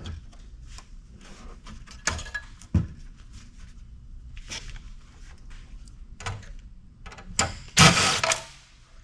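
Parts of an old desktop PC being handled while it is taken apart: scattered clicks and knocks of metal and plastic, with a louder clatter about eight seconds in.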